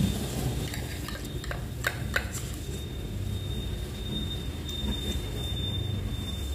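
Steady low rumble of background noise, with a few light clicks of a spoon and chopsticks against a china plate about two seconds in.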